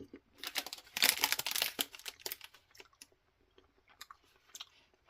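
A person chewing a soft salt liquorice cane: a dense run of wet clicking mouth sounds in the first two seconds, then a few scattered clicks.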